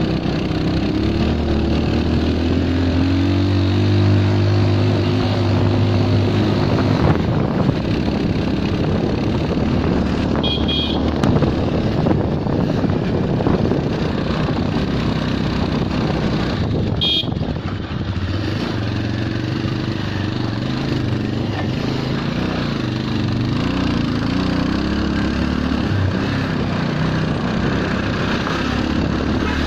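Motorcycle engine running under way, its pitch rising and falling with the throttle, over a steady rush of wind and road noise. Two brief high beeps sound about ten and seventeen seconds in.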